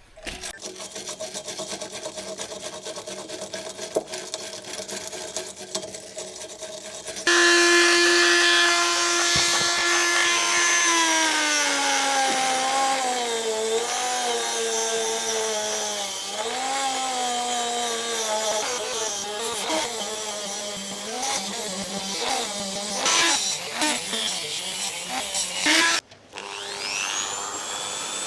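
Handheld power tool working on the car's steel bodywork. Its motor note sags and wavers in pitch as it is pushed into the work. It stops briefly near the end, then spins up again with a rising whine.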